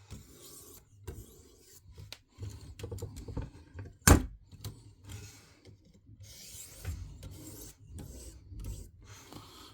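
Diamond sharpening stone on a KME guided-rod sharpener scraping along a fillet knife's edge in light, irregular strokes: the final deburring 'kiss the edge' passes. A sharp click about four seconds in is the loudest sound.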